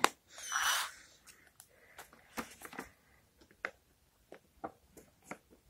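Light clicks and taps of small steel drill bits, screwdriver bits and sockets being handled and pressed back into the plastic slots of a bit-set case, after a short scraping handling noise about half a second in.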